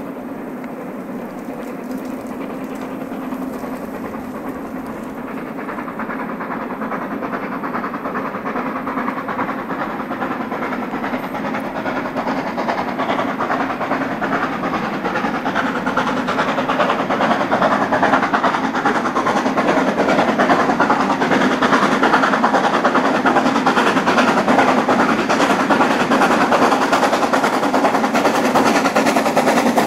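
Harz narrow-gauge steam locomotive climbing toward the Brocken, its rapid exhaust chuffs growing steadily louder as it approaches.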